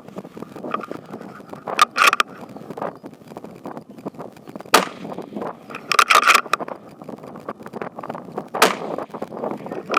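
Precision rifle shots: two sharp single reports about halfway in and near the end. Between them come bursts of quick metallic clicks and clatter, with steady rustling of gear as the shooter shifts position.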